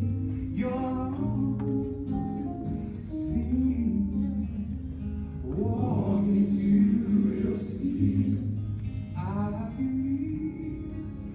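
Music with singing over acoustic guitar and bass, in a gospel style.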